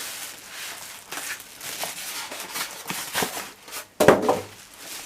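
Packaging crinkling and rustling as it is handled during unboxing, in irregular short bursts, with one louder burst about four seconds in.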